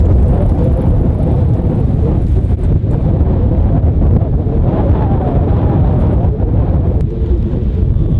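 Strong wind buffeting the microphone: a steady, loud low rumble with no clear breaks.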